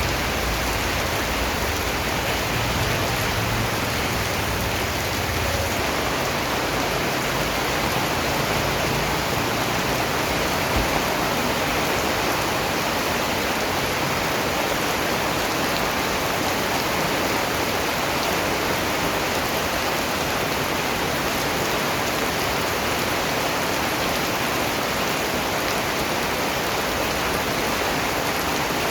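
Steady rain, an even hiss of countless drops falling on surfaces. A low rumble lies under it for the first five seconds or so, then fades.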